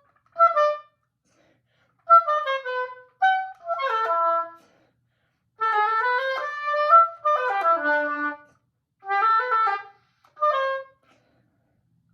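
Solo oboe playing short practice phrases of quick note runs, mostly falling, stopping and starting again between them.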